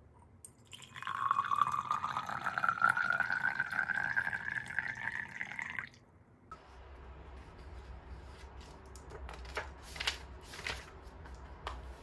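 Tea poured from a glass server into a tall glass, the pouring sound rising steadily in pitch for about five seconds as the glass fills, then stopping. After that a low hum with a few light clicks.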